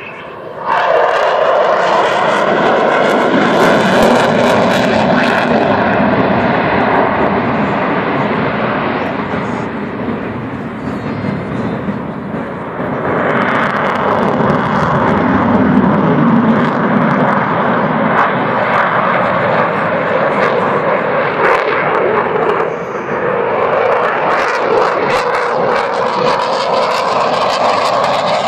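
Eurofighter Typhoon's twin EJ200 turbofan jet engines during a display pass, very loud. The jet noise jumps up sharply about a second in, then stays loud and sustained, easing slightly around ten seconds and again briefly near 23 seconds.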